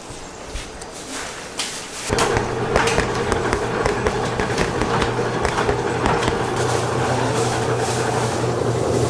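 A few clicks and knocks, then about two seconds in a machine starts running with a steady hum over a dense crackling noise.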